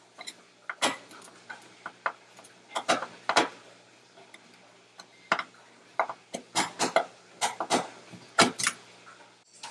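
Flathead screwdriver turning a screw out of an old thermostat's metal base plate: a string of irregular metal clicks and scrapes, some in quick clusters, as the blade works in the screw slot.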